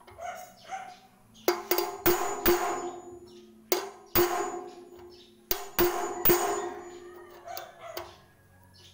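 A hammer strikes a steel bar to drive a bearing race into the hub bore of a steel concrete-mixer drum. About ten sharp metallic blows come in uneven groups, and each one rings out briefly through the drum.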